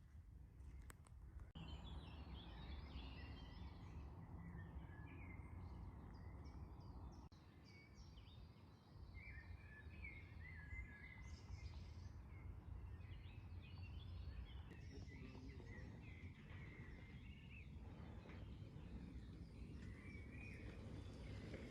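Faint birdsong: several small birds chirping and twittering in short, wavering phrases, over a steady low rumble.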